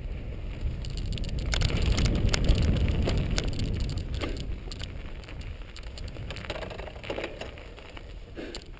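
Mountain bike riding up a dry dirt single-track, heard on a GoPro: low wind rumble on the microphone with the crackle and rattle of tyres and bike over the trail, loudest in the first few seconds and then easing off.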